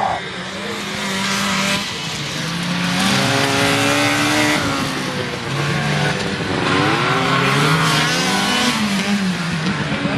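Several vintage two-stroke snowmobiles racing together, their engines running hard with pitches rising and falling as they accelerate and back off, overlapping one another.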